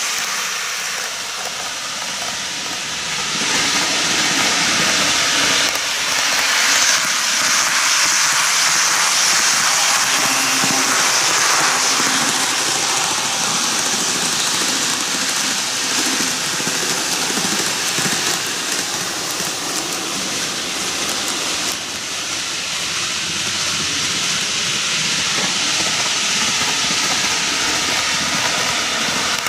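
N-gauge model trains, a Kintetsu 23000 series Ise-Shima Liner and an 80000 series Hinotori, running on canted plastic track: a steady rolling hiss of wheels and motors on the rails, growing louder a few seconds in.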